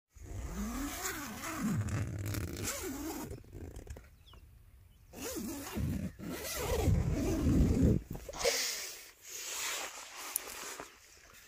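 Tent door zipper being pulled open in several rasping runs, with the tent fabric rustling as it is handled; the loudest run comes about seven to eight seconds in.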